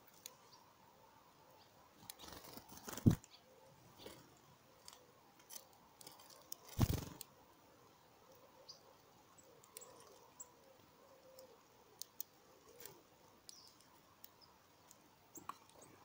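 Small garden birds feeding at a wooden bird table heaped with seed: faint, scattered clicks and taps of pecking and hopping, with two louder sudden bursts about three and seven seconds in.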